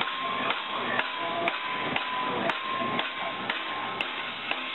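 Hammer blows on a large metal ship's propeller, struck at an even pace of about two a second.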